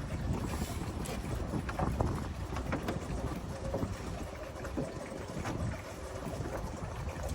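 Strong wind buffeting the microphone as a steady low rumble, with scattered short knocks through it.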